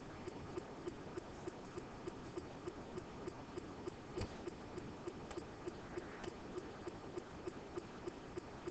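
Faint steady ticking, about three ticks a second, over a low background hiss, with a single soft knock about four seconds in.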